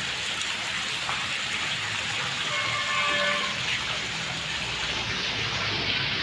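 Water jetting from an inlet pipe and splashing steadily into a koi tank, a continuous rushing splash.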